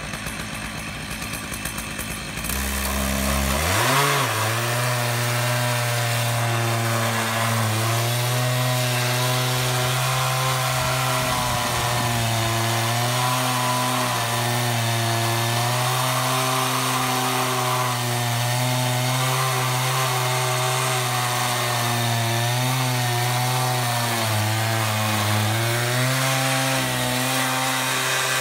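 Stihl 088 two-stroke chainsaw on an Alaskan chainsaw mill, ripping lengthwise through a large redwood log. The saw idles for the first couple of seconds, revs up sharply about three seconds in, and holds a steady full-throttle note as it cuts. Near the end its pitch sags briefly under load, then picks up again.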